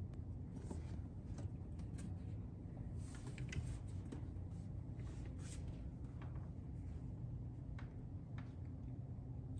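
Faint room noise with a low hum and scattered small clicks and rustles at uneven intervals.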